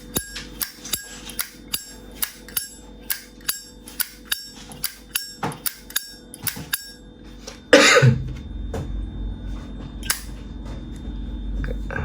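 A vintage 1979 Zippo lighter's hinged lid being flicked open and snapped shut over and over: quick metallic clicks with a slight ring, about three a second. The clicks stop after about seven seconds, and a single louder clack comes about eight seconds in.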